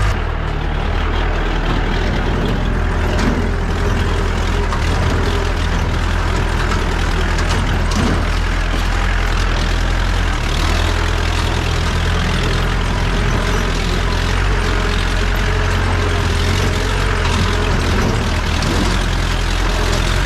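Jeep engine running steadily in a low drone while the jeep drives over a rough off-road track, with a few brief knocks and rattles.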